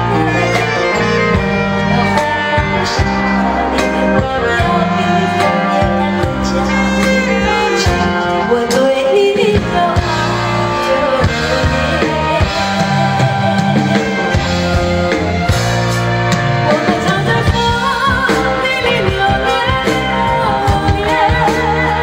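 A woman singing a Mandarin pop song live into a handheld microphone, backed by a live band with drums and guitar.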